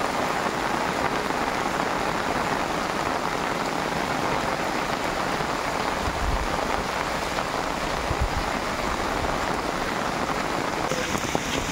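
Heavy rain falling steadily on a street and trees, an even hiss of drops.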